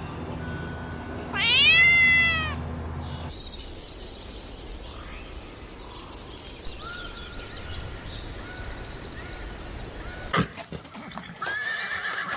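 A cat meowing: one long call about a second and a half in that rises and then falls in pitch, over a low steady hum. It is followed by fainter chirping and another shorter call near the end.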